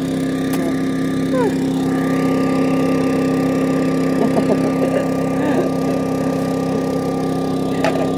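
An engine running steadily at a constant speed, a continuous droning hum that does not change pitch, with a sharp click near the end.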